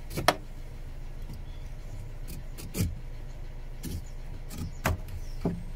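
Scattered sharp knocks and clinks of a hand tool against the car body's sheet-metal panel, about six over a few seconds, the loudest about a quarter second in, over a steady low hum.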